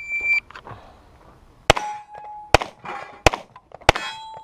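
A shot timer's start beep, then four pistol shots in quick succession, with steel targets clanging and ringing after the first and last shots.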